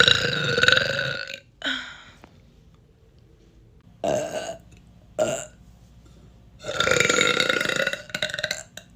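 A person burping loudly, several times: a long burp that ends early, a short one after it, two short burps in the middle, and a long drawn-out burp near the end that breaks up as it trails off.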